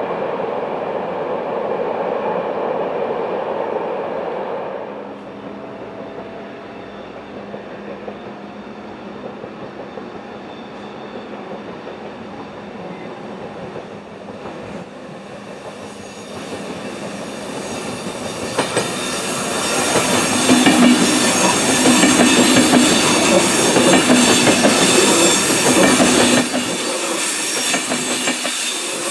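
A train rumbling across a stone viaduct, fading away within the first few seconds. Then an ÖBB Railjet passenger train approaches and passes close by, growing loud about two-thirds of the way in as its coaches run past. It is pushed by an electric Taurus locomotive at the rear.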